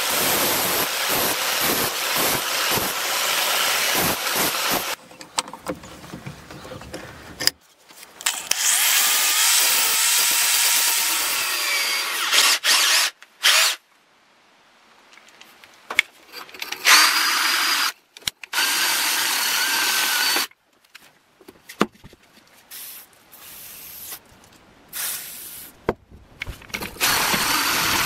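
Angle grinder grinding the steel axe head, then a power drill spinning a twisted wire brush inside the axe head's eye to scour off rust. The drill runs with a whining motor in two long runs, then in short stop-start bursts.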